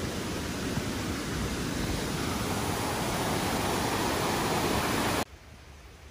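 Mountain stream cascading over boulders: a steady rush of water that cuts off suddenly about five seconds in.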